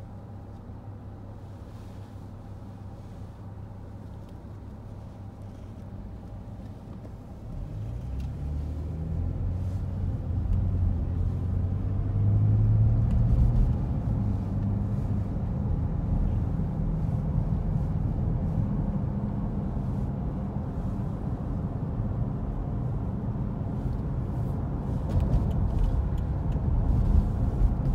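Car engine and road noise heard from inside the cabin: a low steady hum at first, then about seven seconds in the car pulls away and accelerates, the engine rising in pitch before settling into a steady cruising rumble with tyre noise.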